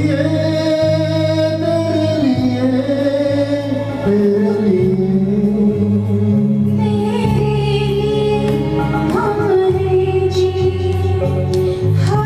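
Male and female singers performing a Hindi film-song duet into microphones over instrumental accompaniment, with long held, gliding vocal lines over steady chords; the woman's voice leads by the end.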